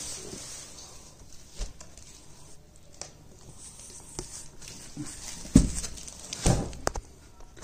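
Handling noises from a plastic-wrapped parcel being moved about: scattered light knocks and rustles, with two louder thumps past the middle as it is set down.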